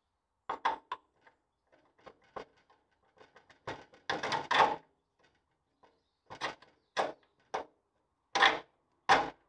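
Irregular knocks, clinks and scrapes of steel parts being handled: a threaded bar worked through a Land Rover Series 2 front spring-hanger bush, and the leaf spring's eye pushed up into the hanger. There is a denser scraping cluster about four seconds in, and the loudest knocks come near the end.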